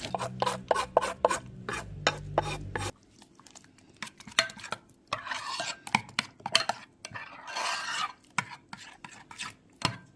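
A spoon stirring and scraping in a bowl, with many quick clinks and knocks against its side and a couple of longer scrapes.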